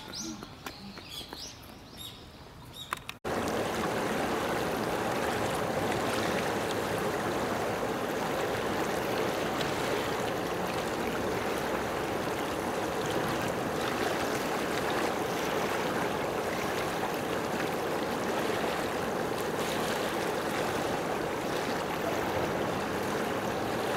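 A few faint high chirps, then an abrupt switch about three seconds in to a steady rushing of flowing water, like a stream, that holds at an even level.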